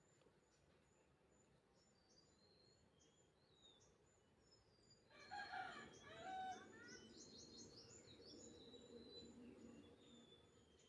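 A rooster crows once, about five seconds in, over faint chirping of small birds.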